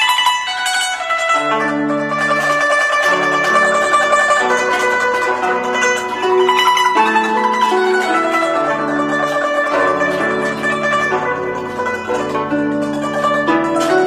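Guzheng (Chinese zither) played with rapid plucked notes in the upper and middle range, over sustained low notes that hold and change every second or so.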